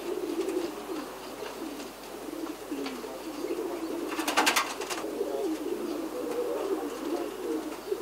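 Domestic pigeons cooing, several at once in an unbroken low chorus, with a short rapid rattling burst about four seconds in.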